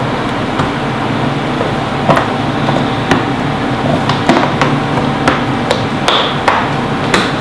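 Sharp, irregular plastic clicks and knocks, about a dozen, coming thicker in the second half, as the frame of a thermoplastic radiotherapy immobilisation mask is pressed down and clipped onto the pins of the head baseplate.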